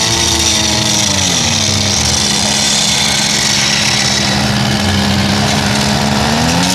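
Small petrol engine running steadily, its pitch rising and falling as it is revved under load, once at the start and again near the end.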